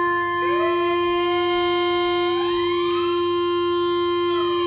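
Korg monologue analog monophonic synthesizer holding one steady note from its first oscillator while the second oscillator's pitch is swept by a knob. The second tone glides up in two steps against the fixed note and starts to fall near the end.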